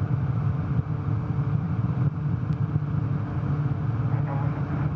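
Steady low rumbling noise with a faint hum underneath, unchanging, with no distinct events.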